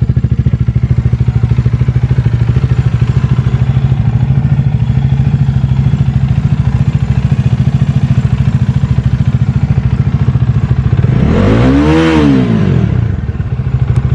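Bajaj Dominar 400's single-cylinder engine idling through its exhaust with a steady, rapid thump, then blipped once about eleven seconds in, the pitch rising and dropping back to idle. A powerful exhaust note.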